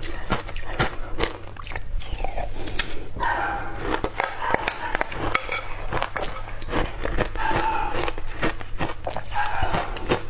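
Ice being bitten and crunched between teeth: a quick, dense run of sharp crunches, with a few short higher-pitched sounds in between and a steady low hum underneath.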